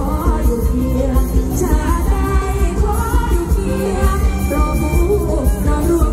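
Isan mor lam song performed live: a female singer sings into a microphone over a band amplified through a loud PA, with a strong, steady bass beat.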